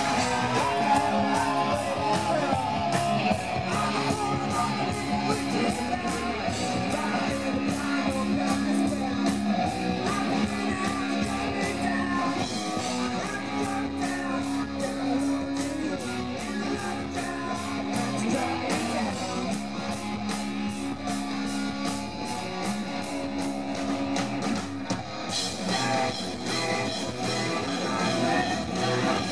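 Hard rock band playing live: electric guitars, bass guitar and drum kit, with a singer.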